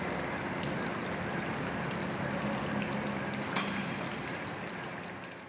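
Swimming-pool water splashing and sloshing as a person is lowered into it. There is one sharp click about three and a half seconds in, and the sound fades away near the end.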